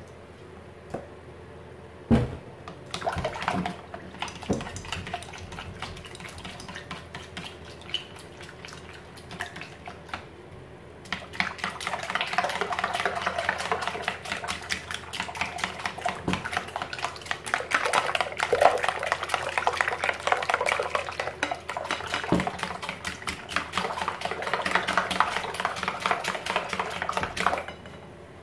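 Whisk with black plastic wires beating a liquid egg and condensed-milk custard in a glass bowl: quick ticking of the wires on the glass with sloshing. Slow and scattered at first with a few knocks on the bowl, then fast and steady from about a third of the way in until just before the end.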